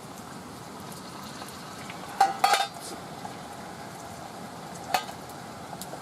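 Metal cookware and utensils clinking, with a cluster of sharp ringing clinks about two seconds in and a single one near five seconds, over a steady hiss.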